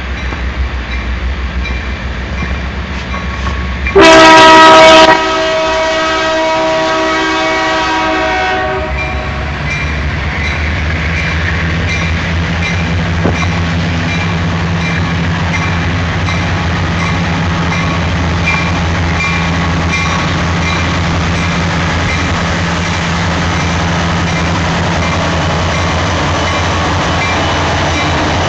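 Union Pacific diesel locomotive horn sounding one loud blast about four seconds in, its chord echoing for a few seconds after. The lead locomotives' diesel engines then rumble past, followed by the steady rolling noise of the container train's cars.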